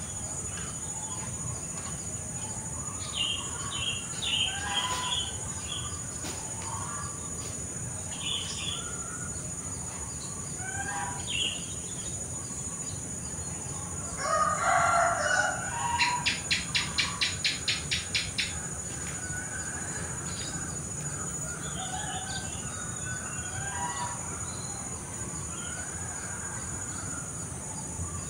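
Outdoor garden ambience: birds calling on and off over a steady high insect drone. About halfway through, a rooster crows, followed by a rapid run of about a dozen sharp calls.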